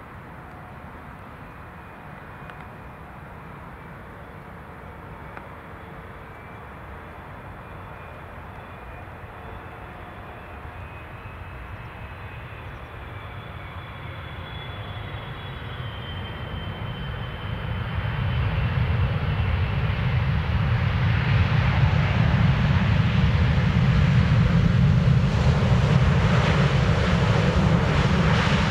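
Jet engines of a Boeing 777-300 on approach to land, growing steadily louder as it nears, with faint high tones that slowly fall in pitch. The sound swells sharply about two-thirds through and stays loud.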